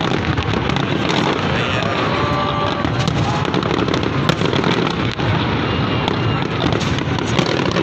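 Fireworks display going off in a dense, continuous barrage of bangs and crackle.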